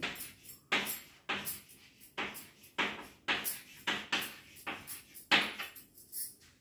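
Chalk writing on a blackboard: a quick run of short scratching and tapping strokes, about three a second.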